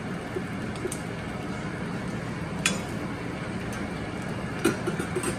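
Potato fries deep-frying in hot oil in a small wok, a steady sizzle. Near the end there are a few light clinks of metal spoons against the pan as the fries are turned.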